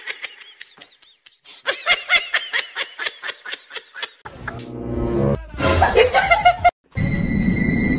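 A person giggling in quick repeated bursts. After about five seconds come louder, noisier sounds, and near the end a steady high-pitched tone.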